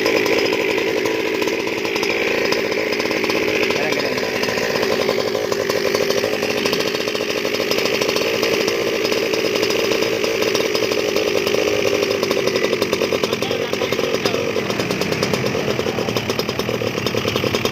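A 71cc 'evo' small engine running steadily at a fairly constant speed, giving a continuous buzzing exhaust note.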